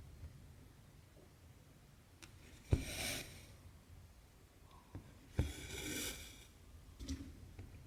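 Cross-stitching on Aida cloth. The needle pokes through the fabric with a sharp tap, then the cotton thread is drawn through with a rasp. This happens twice, about 2.7 and 5.4 seconds in, with a few light ticks between.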